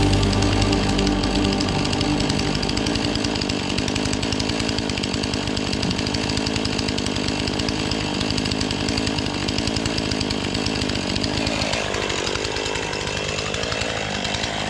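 Two-stroke chainsaw running at high revs. Near the end its engine pitch drops sharply, then climbs back up.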